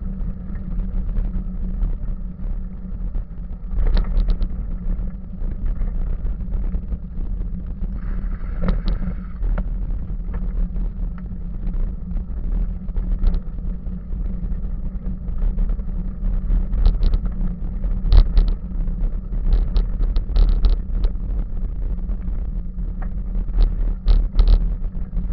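Bicycle riding over a gravel woodland path: a steady low rumble of wind buffeting and tyres on the camera microphone, with sharp clicks and rattles as the bike jolts over bumps.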